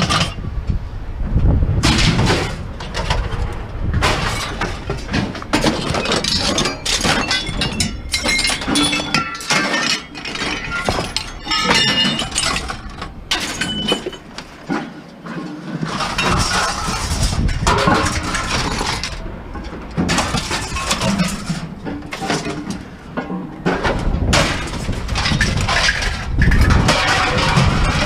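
Scrap being handled and tossed about, with irregular clanking, clinking and rattling of hard objects knocking together, some sounding like glass.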